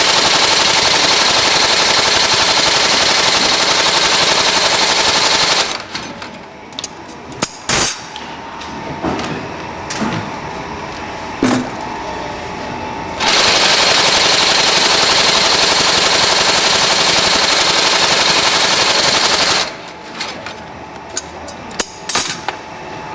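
TSH-2619 Goodyear welt inseam chain-stitch sewing machine running at speed, its awl and needle stitching a shoe's welt with a rapid, loud rattle, in two runs of about six seconds each. Between the runs and after the second, the machine is stopped and there are scattered clicks and knocks.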